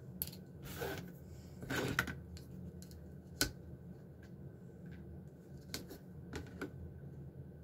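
A metal straight edge and craft tools being handled on a cutting mat: a handful of scattered light clicks and short scrapes, the sharpest about three and a half seconds in.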